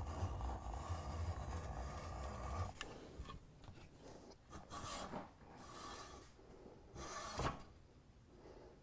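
Hacksaw blade cutting through the soft polymer front sight of an HK UMP, rasping back and forth in long strokes. It saws steadily for the first few seconds, then makes a few shorter, fainter strokes with pauses between, and stops near the end.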